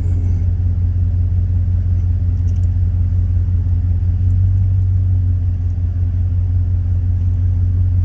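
Loud, steady low mechanical drone that holds an even pitch and level.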